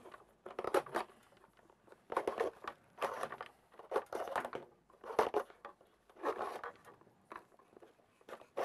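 Mains power cord being pulled and fed through a black plastic cord caddy and a wooden cabinet by hand: irregular scraping and rubbing strokes of cable against plastic and wood, with a sharp click near the end.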